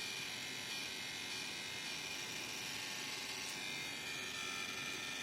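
Deepcool LT720 all-in-one liquid cooler pump running with a steady, chirring buzz. This is the crackling the pump makes while it runs, the fault it is being taken apart for.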